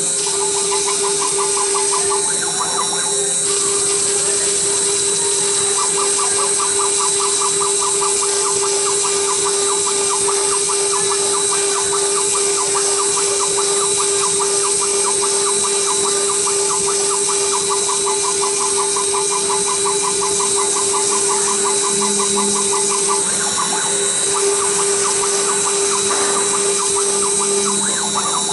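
Redsail CNC router's spindle running steadily with a constant whine while the bit engraves a circuit board, with a fast pulsing rattle that comes and goes in stretches.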